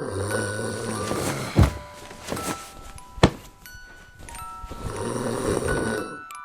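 A person snoring: two long snores a few seconds apart, over light tinkling music. Between them come two sharp thumps, the loudest sounds in the stretch.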